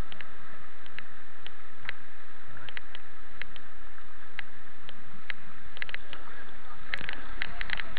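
Rushing white water of a small river rapid, heard from a kayak through a helmet-mounted action camera: a steady rush with many short splashes and ticks, which come thicker about six seconds in.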